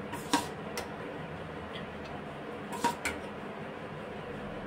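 A steel spoon clinking against stainless-steel bowls while boiled beans are spooned from one bowl into another: about four light clinks, two early and two a little past the middle, over a faint steady hum.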